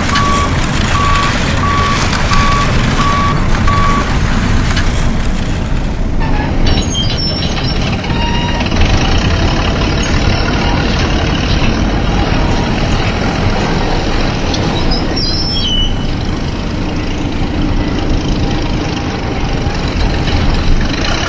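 Heavy truck engine running with a reversing alarm beeping steadily, a little more than once a second. The beeping stops about four seconds in, and the engine rumble carries on, shifting in tone about six seconds in.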